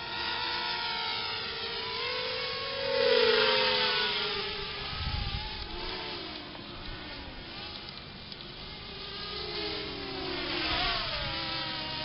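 A quadcopter's motors and propellers buzzing in flight, their pitch rising and falling with the throttle. It is loudest about three seconds in and again near the end.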